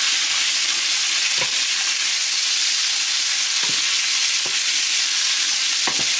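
Steady sizzling hiss of food frying in a pan, with a few faint light taps.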